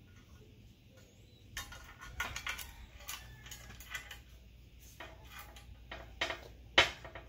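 Small steel parts being handled: a string of separate metallic clicks and clinks as washers, a nut and the winch's steel cable knock against the steel winch mount. The loudest clink comes near the end.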